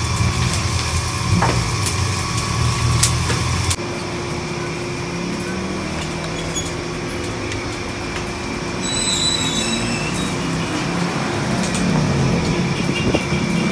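Busy kitchen noise with a low hum and a few sharp utensil clicks. About four seconds in it changes abruptly to steady street traffic with motor vehicles passing, and there is a brief high squeal around the middle.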